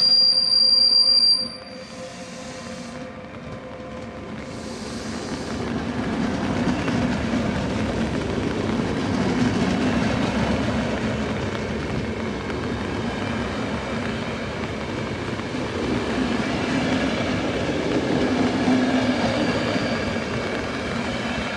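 OSE class 120 electric locomotive hauling a passenger train past at close range. A loud, high, steady whine sounds as the locomotive goes by and cuts off sharply after about a second and a half. The coaches' wheels then run past on the rail with a steady rolling rumble that builds and swells.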